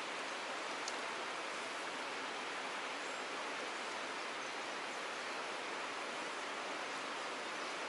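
Fast stream water rushing and splashing through a narrow rock channel, a steady, even rush.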